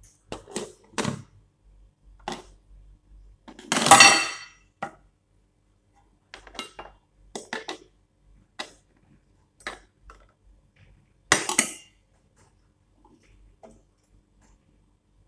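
Cookware clatter: a series of short knocks and clinks from a pot and its lid being handled, the loudest about four seconds in with a brief metallic ring, and another loud clank later on.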